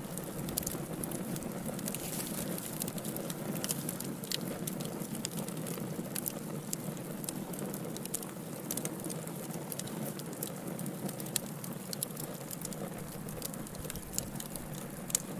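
Fireplace wood fire burning steadily: a low rushing rumble of flames with frequent sharp crackles and pops scattered irregularly throughout.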